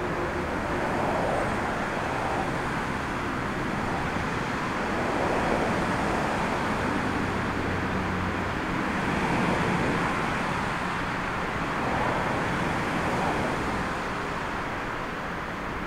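A twin-engine widebody airliner's jet engines on short final, heard as a steady rushing noise mixed with gusty storm wind on the microphone. The noise swells and eases every few seconds.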